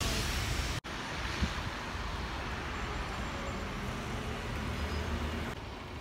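Town-centre street noise with steady road traffic. The sound cuts out for an instant just under a second in.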